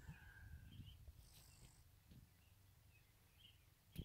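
Near silence: faint outdoor quiet with a low rumble of handling and a few faint, distant bird chirps, and a single sharp click about four seconds in.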